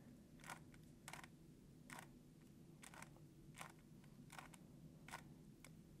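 Faint clicks of a GAN 3x3 speedcube's plastic layers being turned, about two quick turns a second, as the R U R' U' algorithm is run twice.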